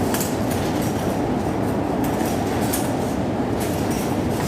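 Strong gusting wind buffeting the phone's microphone: a steady, heavy rumbling roar, with scattered short clicks and rattles on top.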